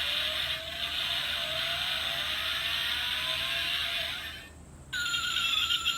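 Electronic engine-start sound played through the small speaker of a diecast pull-back toy car, set off by pressing its bonnet: a tinny engine running with a slowly rising pitch for about four seconds, then fading out. About five seconds in, a second, higher-pitched electronic sound from the toy starts.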